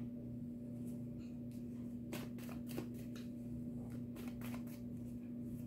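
A deck of cards being shuffled by hand: a handful of short, soft strokes starting about two seconds in, over a steady low hum.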